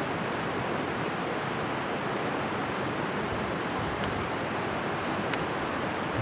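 Steady rushing of flowing water, an even unbroken hiss, with a faint tick or two in the second half.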